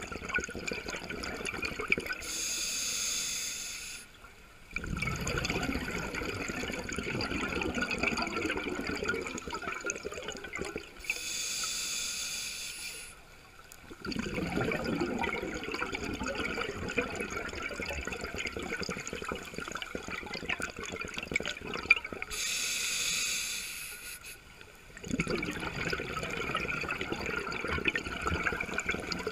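Scuba regulator breathing underwater: three short hissing inhalations through the demand valve, each followed by a long bubbling exhalation.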